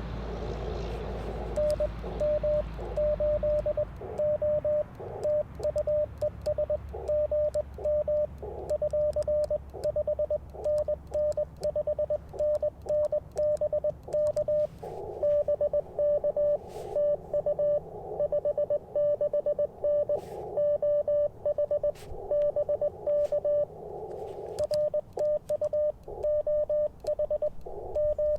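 Morse code (CW) from an Icom IC-705 transceiver on the 30-metre band: a single mid-pitched tone keyed on and off in quick dits and dahs. In some stretches the tone comes through with band hiss around it. A few faint clicks are heard.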